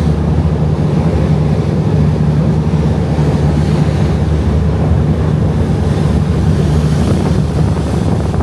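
Boat engine running at a steady drone, with wind buffeting the microphone and water rushing past the hull.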